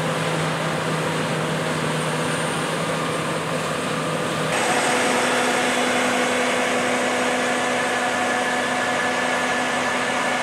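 Steady mechanical running noise with a constant hum. The hum steps up in pitch and gets a little louder abruptly about four and a half seconds in.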